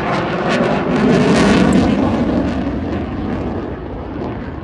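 Eurofighter Typhoon's twin EJ200 jet engines, loud as the fighter passes, peaking about a second and a half in and then fading away.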